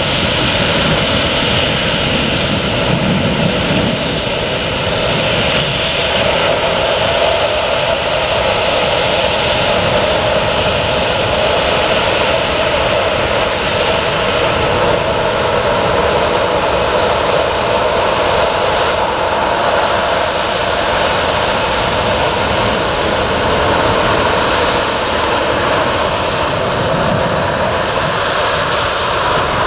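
Boeing 737-800's CFM56 turbofan engines running at taxi power, a steady jet whine with a high tone that steps up slightly in pitch past the middle.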